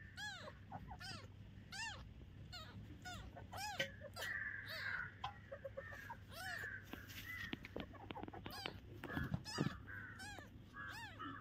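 Very young kitten mewing over and over: thin, high cries that rise and fall in pitch, about one a second.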